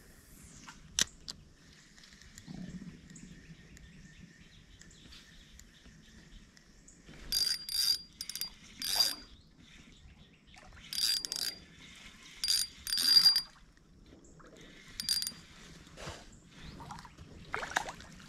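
Spinning fishing reel cranked in several short bursts of whirring with a high gear whine, as a lure is retrieved.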